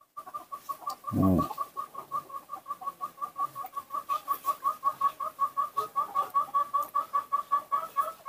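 Rapid rhythmic squeaking, about seven short squeaks a second at one pitch, as a newborn baby monkey sucks milk from a feeding bottle. A single low thump about a second in.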